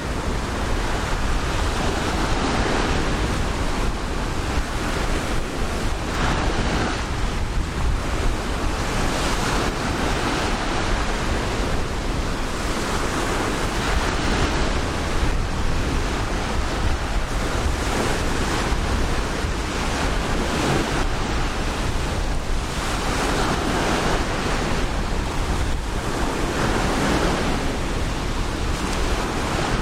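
Ocean surf on a sandy beach: waves breaking and washing up the shore, swelling and easing every few seconds, with a steady low rumble of wind on the microphone.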